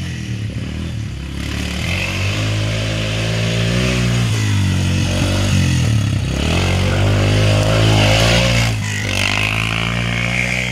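ATV (four-wheeler) engine revving up and down as the quad rides toward and past, loudest about eight seconds in, then pulling away.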